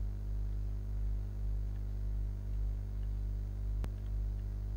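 Steady low electrical mains hum with a buzz of even overtones, and one brief click a little before the end.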